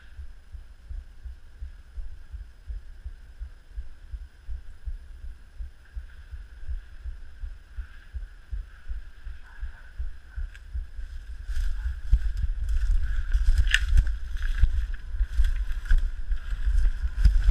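Footsteps and body movement through a bamboo thicket, picked up by a body-worn action camera: low rhythmic thuds. About two-thirds of the way in they give way to louder crackling and rustling of dry bamboo stems and leaf litter.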